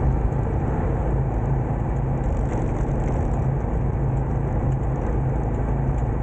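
Engine of a homemade go-kart running steadily while it is being ridden.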